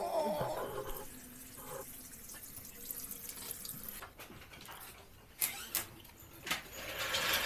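Engine coolant draining from a car radiator, a steady running trickle of liquid, with a few sharp knocks in the second half.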